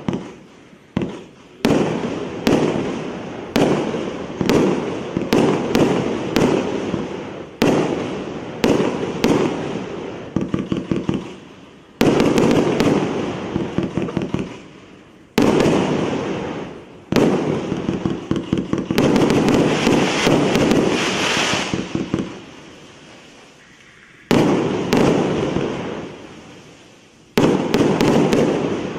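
A 'President' 01525 consumer fireworks cake of 348 shots, 1.25-inch calibre, firing: a long series of launches and bursts, some coming in quick runs, each bang dying away. There is a brief quieter lull about two-thirds of the way through.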